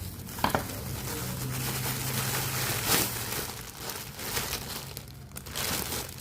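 Parcel packaging being crinkled and torn open by hand, a continuous rustling crackle with a few sharper snaps, the loudest about three seconds in.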